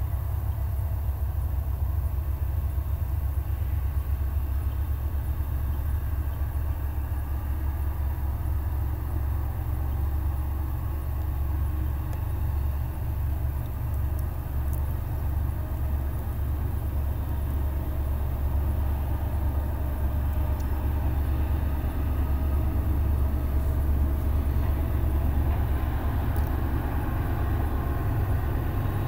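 Low, steady rumble of a distant diesel freight train, its engine note growing a little louder near the end.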